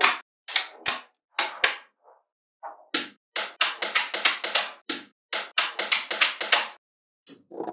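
Small magnetic balls clicking together as they are snapped into place: a handful of single sharp clicks in the first two seconds, then a quick run of many clicks from about three to nearly seven seconds in.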